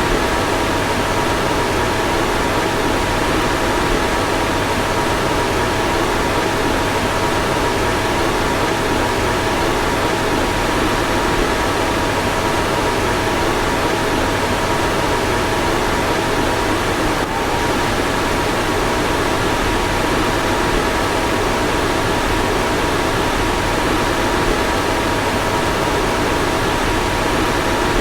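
A car's fan blowing steadily: an even rushing whoosh with a faint steady hum under it. The level dips briefly about two-thirds of the way through.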